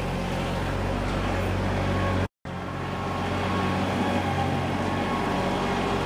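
Engine idling steadily, a low even hum. It breaks off for a moment about two seconds in.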